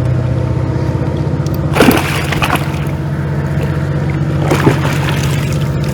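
A motor runs with a steady, loud hum, and water splashes sharply twice, about two seconds in and again near the five-second mark.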